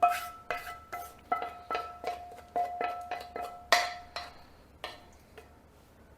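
Mixing with a utensil that knocks against the side of a bowl, about two to three strikes a second. Each strike leaves a short ringing tone. The strokes slow and fade out near the end.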